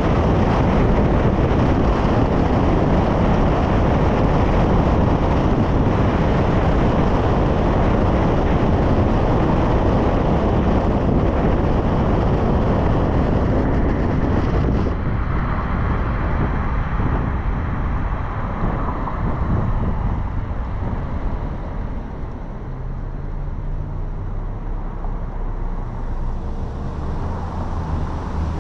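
Car driving at road speed: steady tyre and wind noise that eases off about halfway through as the car slows, then drops again, leaving a low steady engine hum as it comes to a stop in traffic near the end.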